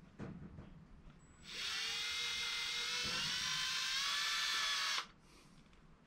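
Cordless drill boring a wire hole through a resin-cast corn cob lure blank. The motor's high whine starts about a second and a half in and holds for about three and a half seconds, its pitch rising slightly, then stops abruptly.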